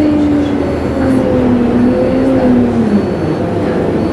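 Alexander Dennis Enviro 200MMC single-deck bus decelerating, heard from inside the cabin: a whine that falls steadily in pitch until about three seconds in, over engine and road rumble, as the bus slows to a stop.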